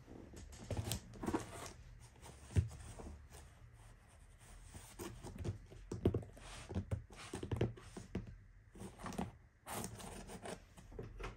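A cardboard shipping box being handled by hand: shifted, patted and rubbed, giving an uneven string of scrapes, rustles and knocks, with one sharp knock about two and a half seconds in.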